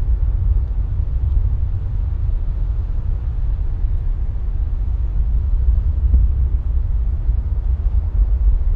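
Low, steady rumble of a distant Atlas V rocket launch, its sound arriving long after liftoff.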